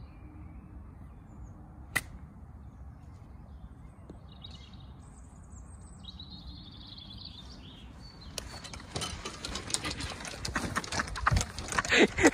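A golf club striking the ball once, a single sharp crack about two seconds in, with birds chirping afterwards. From about eight seconds in, loud rustling and crackling on the microphone builds up, with a voice near the end.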